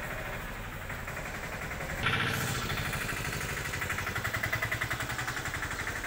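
An engine running at idle with a steady, rapid pulse, louder from about two seconds in.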